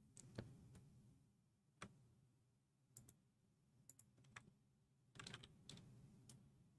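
Faint, irregular clicking at a computer, a dozen or so soft clicks scattered through otherwise near silence, as a frozen web page fails to respond to scrolling.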